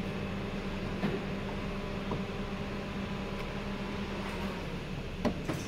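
A steady low mechanical hum, with a few short clicks of a key working in a car's door lock.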